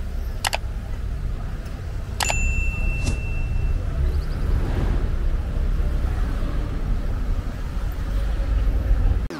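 YouTube subscribe-button animation sound effects: a click about half a second in, then a second click about two seconds in with a bell-like ding that rings on for a second or so, and another click just after. These play over a steady, fairly loud low outdoor street rumble.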